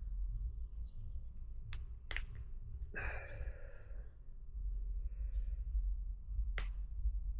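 A few sharp clicks and snips from a hand wire-stripping tool working on speaker wire, with a breathy sigh about three seconds in.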